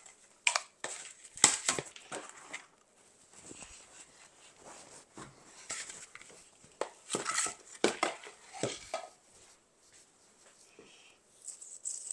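Dried bittersweet branches crackling and rustling as they are handled and lifted out of a plastic storage tote, with scattered sharp clicks and knocks.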